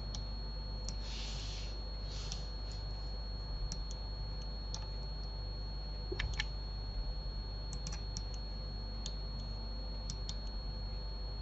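Scattered, irregular clicks of a computer mouse and keyboard being worked, a few at a time, loudest about six seconds in, over a faint steady high whine and low hum. Two short hisses come about one and two seconds in.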